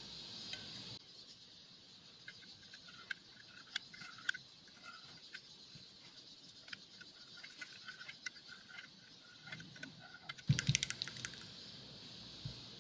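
Light, irregular ticks and taps of a knife blade against a glass dish as a block of coffee jelly is sliced. About ten and a half seconds in comes a louder clatter with a thump as the glass dish is lifted and tipped against the plastic cutting board.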